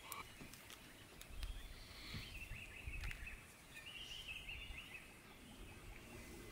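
Short bird chirps, repeated several times, over a quiet outdoor background, with a few faint clicks and a low rumble partway through.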